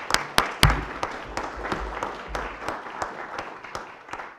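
Audience applause, a dense run of hand claps that fades toward the end. A low thump sounds a little over half a second in, louder than the claps.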